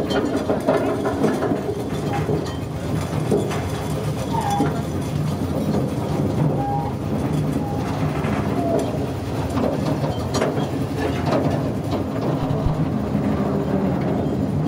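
A train running on rails, a steady rumble, with a few short faint higher tones over it.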